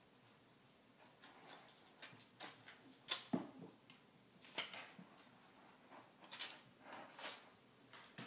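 Kitten paws scratching and digging in litter in a plastic litter box: irregular scrapes and rustles, with a few sharper scratches, the loudest about three and four and a half seconds in.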